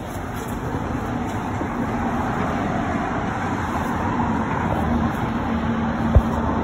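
Steady street traffic noise with a low steady hum coming in about four seconds in, and a single short thump just after six seconds.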